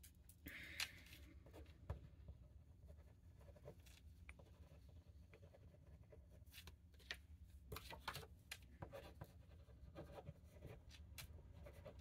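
Faint scratching of handwriting on an index card, with scattered light ticks and taps.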